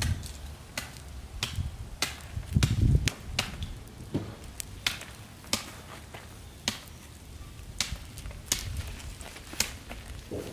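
Footsteps through dry brush, with irregular sharp snaps and cracks of twigs and stems breaking, about one every half second to second.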